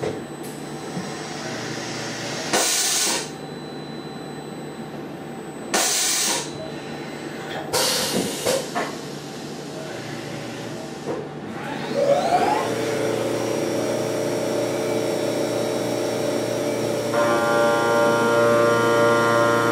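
Tormach 1100MX CNC mill changing to a big end mill. Three short hisses of compressed air come from the pneumatic tool change. The spindle then whines up in pitch and runs steadily, and near the end the coolant comes on as the cut begins.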